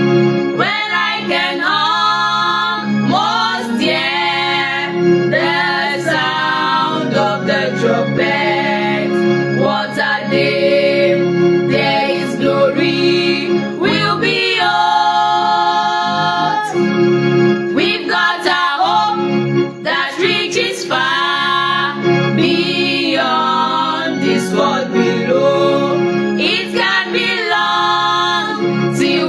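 Gospel song: singing voices over sustained musical backing.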